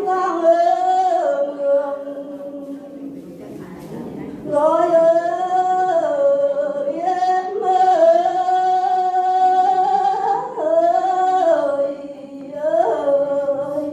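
A woman singing lượn, the Tày folk song style, into a microphone in long, wavering held notes. The voice drops to a softer passage about two seconds in and comes back loud about four and a half seconds in, with a long held note a little before the ten-second mark.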